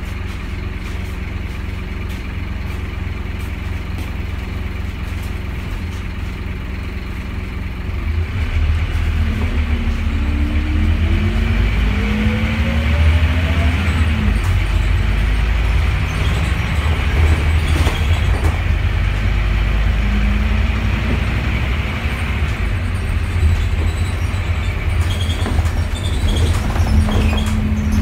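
Scania N230UD double-decker bus's 9-litre five-cylinder diesel, heard from the upper deck: it runs at a steady idle, then about eight seconds in it pulls away and gets louder, its note rising through the gears, and carries on under way with road rumble.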